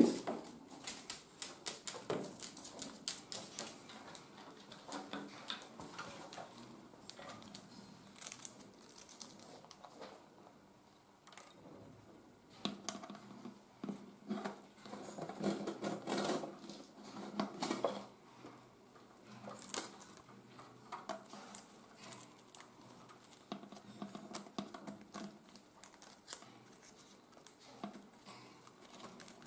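Irregular light clicks, taps and scrapes of a Goffin's cockatoo handling a wooden stick tool and poking it into a clear acrylic puzzle box, with beak and claws knocking on the box and perch. The tapping comes in busier clusters around the middle.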